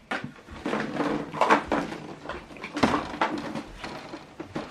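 Handling noises from a USB cable and the printer around it: irregular knocks, clicks and rustling, with several sharper knocks.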